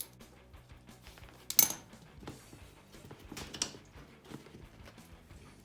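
Faint background music, with a sharp metallic clink about one and a half seconds in and a rougher clatter around three and a half seconds in, from hand work on the motorcycle's oil drain.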